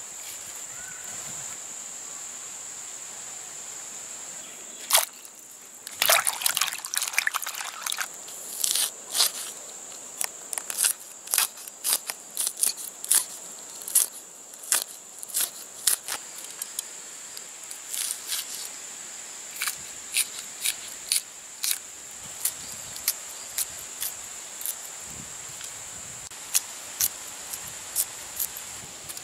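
Green chillies being sliced in the hand with a knife, each cut a crisp click, coming irregularly about once or twice a second from about five seconds in. A steady high insect drone runs underneath.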